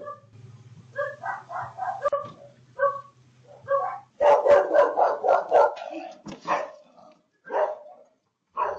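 A dog barking in quick repeated barks, which become louder and come thick and fast about four seconds in, then thin out to a few single barks. A low steady hum runs under the first half.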